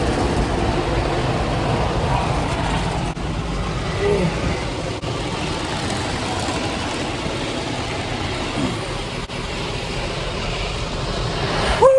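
Automatic car wash brushes on a fast 'super spin' setting, scrubbing over the car and heard from inside it: a loud, steady rumble and hiss. Short falling cries of 'whoa' break through about four seconds in and again at the end.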